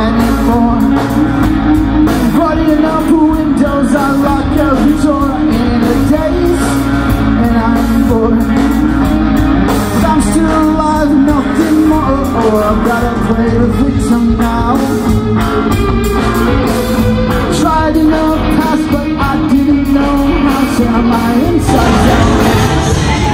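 Rock band playing live: electric guitar, bass guitar and drums, with a sung vocal.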